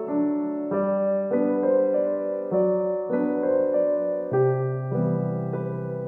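Background piano music: a gentle melody over sustained chords, with a new note or chord about every half second to a second.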